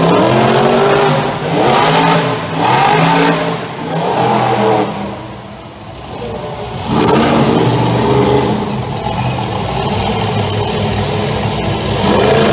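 Monster truck engine revving in repeated bursts, its pitch rising and falling about once a second. It eases off about halfway through, then picks up again and runs hard.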